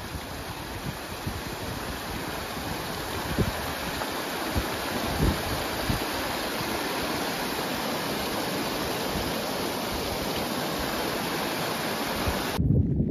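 Shallow rocky mountain stream rushing over stones: a steady, even hiss of running water, with a few short low thumps. About half a second before the end the rushing cuts off abruptly and a louder low rumble takes over.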